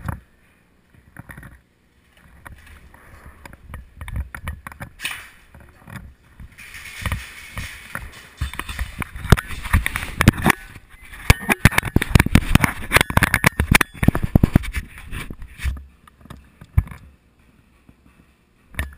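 A dense clatter of rapid clicks and knocks from an airsoft game in play, sparse at first, thickest and loudest in the middle stretch, then thinning out near the end.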